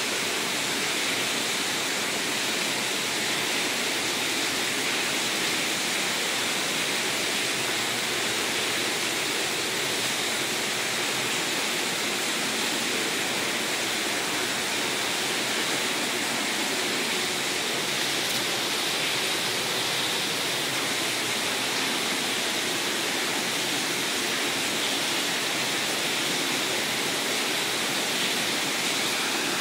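Water rushing and churning through the hatchery's fish ladder: a steady, even roar of turbulent water with no breaks.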